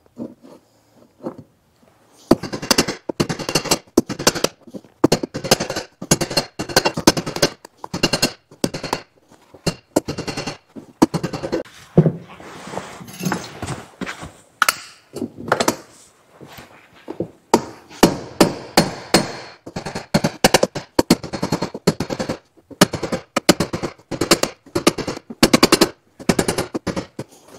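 A claw hammer strikes a steel bar laid over the staples of alligator conveyor-belt lacing, folding them down into the belt. The blows start about two seconds in and come several a second, in quick runs with short pauses.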